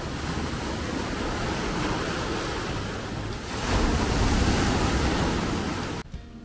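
Sea surf washing against the shore, with wind buffeting the microphone. A louder wash swells up about three and a half seconds in, and the sound cuts off suddenly near the end.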